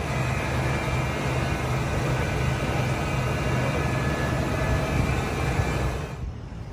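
A motor vehicle's engine running with a steady low rumble and broad traffic noise, starting abruptly and dropping away about six seconds in.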